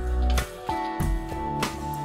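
Background instrumental music: held notes over a steady beat of about one strike every two-thirds of a second.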